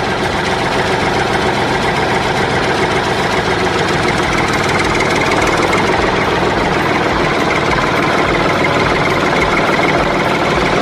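Tractor engine running steadily at idle with a rapid, even clatter.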